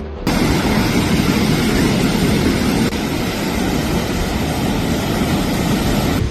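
Cyclone storm wind and heavy rain: a loud, steady rushing noise that starts abruptly, with a brief dip about three seconds in.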